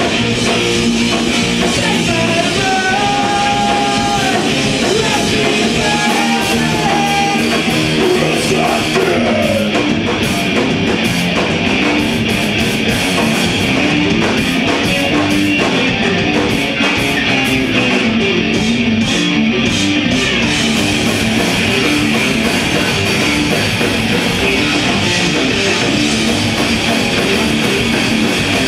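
Live progressive metal band playing loudly and continuously: distorted electric guitars, bass guitar and drum kit.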